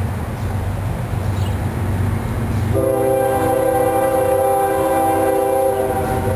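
Diesel locomotive's multi-chime air horn sounding for a grade crossing: one long blast starts about three seconds in, and a second blast starts just before the end. Under it is the steady low rumble of the approaching locomotives' diesel engines.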